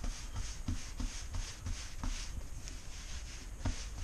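Hands pressing and spreading pizza dough on a floured wooden board: soft irregular rubbing with a few light pats.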